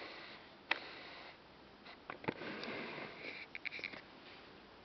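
Long-haired cat sniffing close to the microphone in a run of short breathy puffs, near the end, with a few sharp clicks earlier on.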